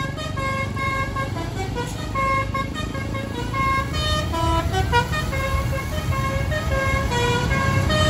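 Telolet basuri bus horn playing a running melody, its notes changing several times a second, over the low rumble of engines and traffic.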